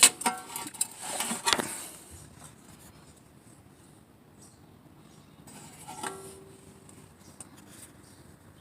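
Metal parts or tools clinking and rattling in a quick cluster of sharp knocks over the first two seconds. After that there is quieter handling and rubbing, with one short ringing clink about six seconds in.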